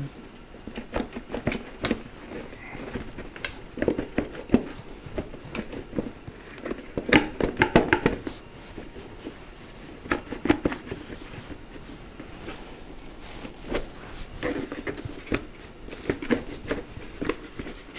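Plastic airbox of a Suzuki DR650 being worked out of the frame by hand: irregular knocks, scrapes and creaks of plastic against the frame and wiring, busiest about seven to eight seconds in.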